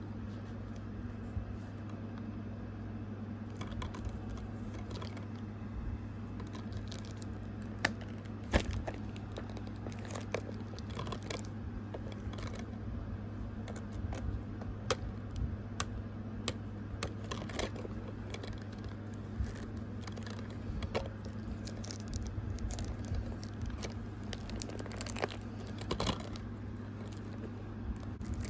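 Plastic shrink wrap on a DVD case crinkling and tearing as it is unwrapped by hand, with scattered crackles and clicks starting a few seconds in, over a steady low hum.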